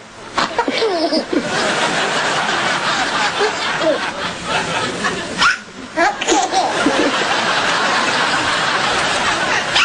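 People laughing, with a short lull about halfway through.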